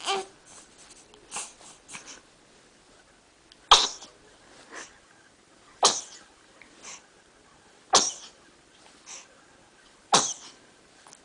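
A baby sneezing five times in a row, about two seconds apart, each sharp sneeze followed by a softer breath. The mother puts the sneezing down to a dusty house.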